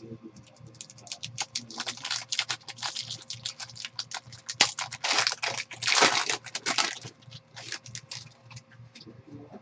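A foil trading-card pack crinkling and crackling in the hands as it is torn open, in quick runs of sharp crackles, loudest in two dense rushes about halfway through.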